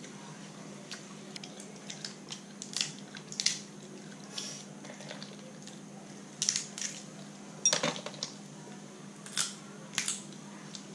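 Eating cooked Dungeness crab: short crackles and clicks of shell being broken and picked apart by hand, with mouth sounds of eating, at irregular intervals over a steady low hum.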